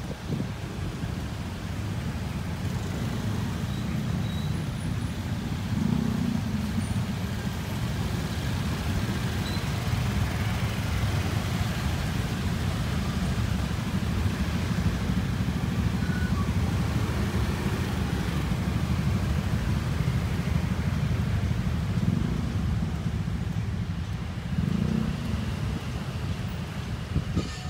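Motor scooter engines running as riders move past, a steady low rumble of small-motorbike traffic with a few brief swells as individual scooters come close.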